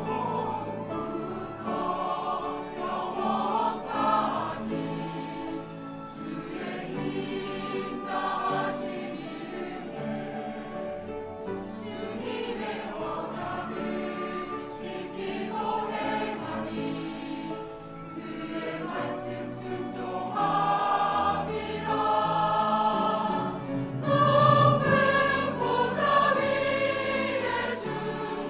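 Church choir singing a hymn anthem in Korean, with instrumental accompaniment, growing louder in the last third.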